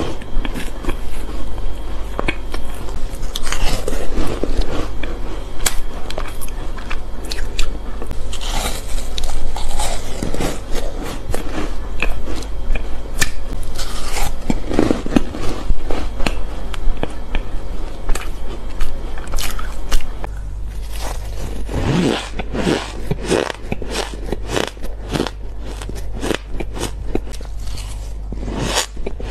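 Close-miked biting, crunching and chewing of frozen shaved ice. About two-thirds of the way in, the crunches turn into a quicker run of crisp, crackly bites. A steady low hum lies underneath.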